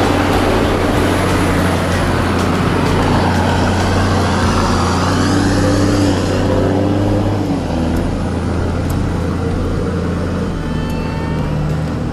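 Toyota Land Cruiser 80-series 4x4 engine running as the vehicle passes close and climbs away up a rough dirt track, its note shifting about three-quarters of the way in.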